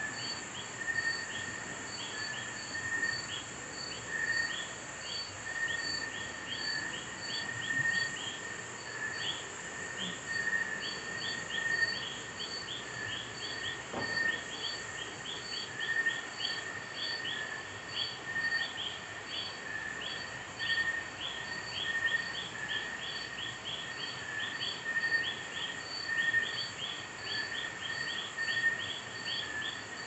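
Nocturnal insect chorus, crickets among them, layering several calls: a steady high hiss, a regular high pip about twice a second, rapid short chirps several times a second, and a lower pulsing trill. A single faint click comes about halfway through.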